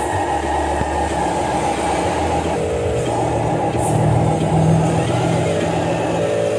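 A vehicle engine running steadily, rising in pitch and getting louder about halfway through before settling back.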